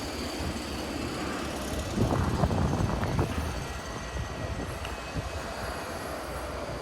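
Steady low rumbling background noise, a little louder for about a second around two seconds in.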